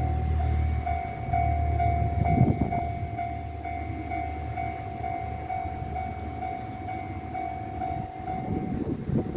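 Railway level-crossing alarm ringing in a steady pulsed two-tone pattern about twice a second while a Tosaden tram runs past on the Gomen line, its low rumble fading in the first second and its wheels clattering about two and a half seconds in. The alarm stops about eight seconds in, and a rattling clatter follows near the end.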